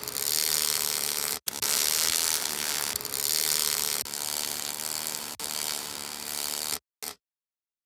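Electric knife-maker's belt grinder running, a steady motor hum under a loud grinding hiss, in a few short spliced segments that cut off abruptly near the end.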